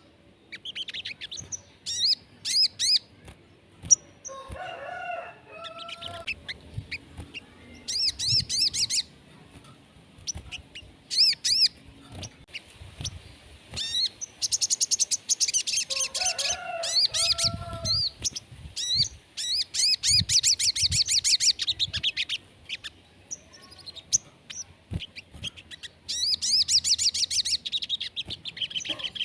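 A sogon singing, used as a stimulus recording for keepers: repeated fast, high chattering trills. Lower whistled phrases come in about five seconds in and again about seventeen seconds in.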